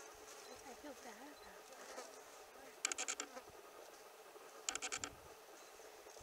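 Insect trilling faintly: two short, rapid buzzing trills of clicks, each about half a second long, a couple of seconds apart.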